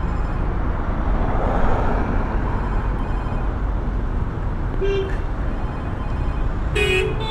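Road traffic passing steadily, with a short vehicle horn toot about five seconds in and a louder toot near the end.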